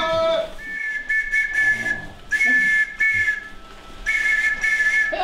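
A handheld whistle blown by a performer as a sound effect in three long blasts, each holding two steady high notes together.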